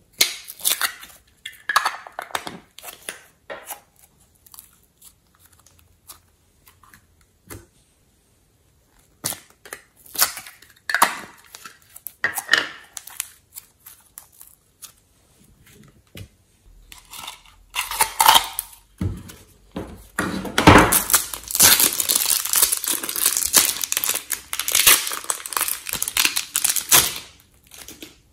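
Hands handling soft modelling clay and slime: plastic clay containers clicking and crinkling as they are opened, and clay being peeled and squished. From about 20 seconds in, a long stretch of dense, loud crackling squishes as the clay is worked.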